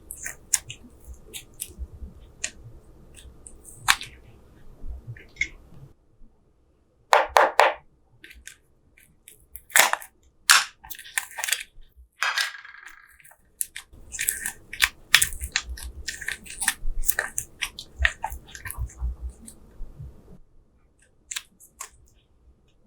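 Slime being squeezed and poked, giving a stream of irregular wet crackles and sharp pops; a few louder snaps come in the middle.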